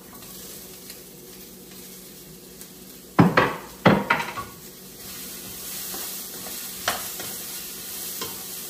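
Vegetables frying and sizzling in a pan as chopped bell peppers are added and stirred with a wooden spatula. Two sharp wooden knocks a little over three seconds in, less than a second apart, and the sizzle grows louder from about five seconds in.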